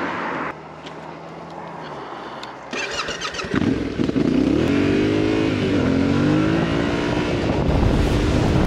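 Yamaha Ténéré 700's parallel-twin engine ticking over, then revving up as the bike pulls away and accelerates, its pitch climbing and dropping back at each gear change.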